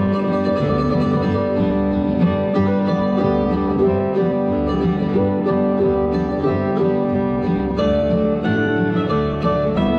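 Instrumental music led by plucked strings, guitar-like, playing steadily with no singing.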